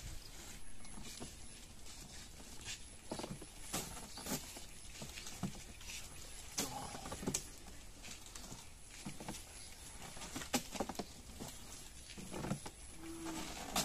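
Scattered soft rustles and clicks from a large homemade hand fan, panels of light fish-carton board on a bamboo pole, being swung back and forth through the air.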